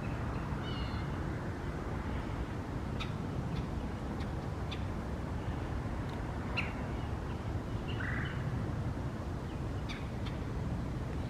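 Wild birds calling: scattered short, sharp chip notes and a few brief chirps, over a steady low rumble.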